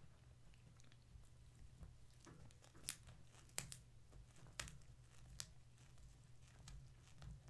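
Near silence: a steady low electrical hum, with a few faint sharp clicks and crackles in the middle.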